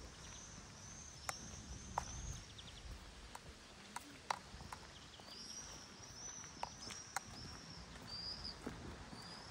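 Faint high chirping of small birds in two quick runs of short arched calls, with a few scattered light clicks.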